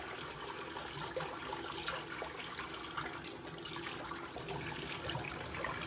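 Hot water running steadily from a tap, with a few faint clicks and knocks.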